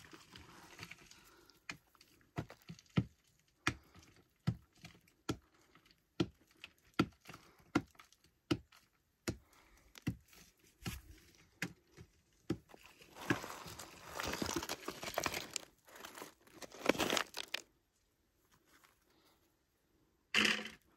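Loose rock and turquoise pieces clicking and knocking against each other as they are worked out of a clay-filled crack by hand, a sharp knock about every second. This gives way to a few seconds of scraping and crumbling of clay and rock, then a last brief rattle near the end.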